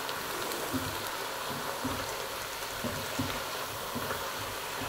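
Vegetables and red wine sizzling in a hot pot as the wine reduces, a steady hiss, with soft scrapes and knocks of a spoon stirring.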